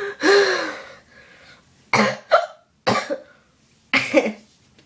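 A drawn-out vocal "oh" trails off. Then a person makes three short, sharp bursts from the throat, about a second apart, each with a quick second catch.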